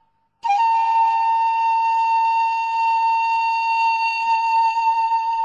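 A loud, steady beep or buzzer tone, one held pitch with overtones, starting about half a second in.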